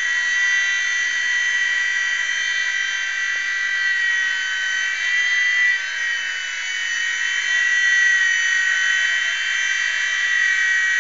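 E-flite Blade mSR micro electric model helicopter in flight, its motors and rotors giving a steady high whine that wavers slightly in pitch and dips briefly about six seconds in.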